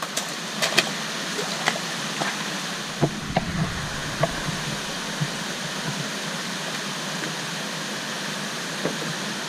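Steady rush of water from a river waterfall and rapids, with scattered sharp knocks and clicks and a few low thumps about three to four seconds in.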